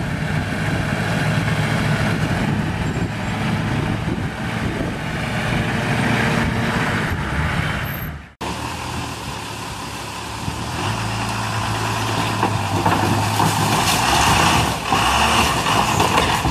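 Hummer H1 engine running under load as the truck crawls up a steep rock ledge. The sound breaks off sharply about eight seconds in and gives way to another Hummer H1 engine working hard. That engine grows louder in the last few seconds as the truck climbs onto parked cars.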